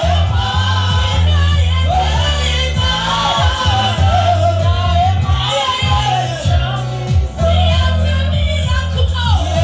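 Church worship song: a group of voices singing over a steady electric bass line that holds each note for about a second or more before moving to the next.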